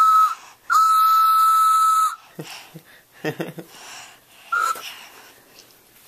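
Toy train whistle blown in toots: a short toot ending just after the start, a steady breathy blast of about a second and a half, then a brief toot near the end.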